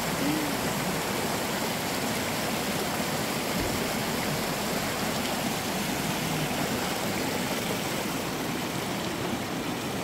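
Clear mountain stream flowing over rocks, a steady rushing of water.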